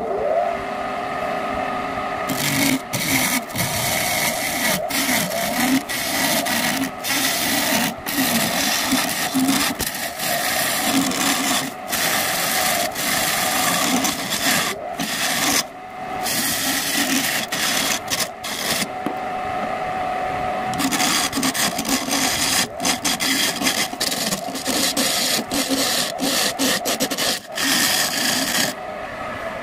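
Wood lathe motor running with a steady hum while a hand-held turning tool cuts the inside of a spinning segmented bowl of sonokeling rosewood and petai jawa wood, a loud scraping hiss. The cutting starts about two seconds in, breaks off briefly a few times, leaving only the motor hum, and stops shortly before the end.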